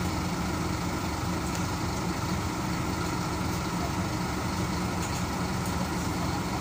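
Engine of a 2009 Scania CN270UB city bus idling at a stop, a steady low hum heard from inside the passenger cabin.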